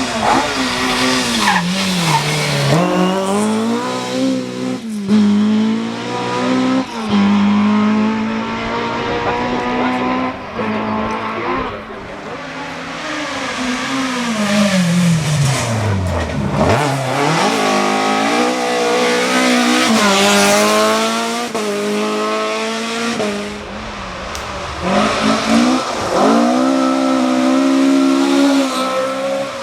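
Classic Mk1 and Mk2 Ford Escort rally cars at full throttle on stage, several in turn, engines revving up and dropping back through gear changes. About halfway through, one car's engine note falls steeply as it goes past.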